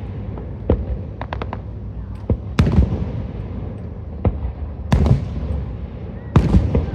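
Aerial firework shells bursting: loud bangs every second or two, the biggest close together near the end, with a quick string of small crackling pops about a second in. A low rumble of echo runs between the bursts.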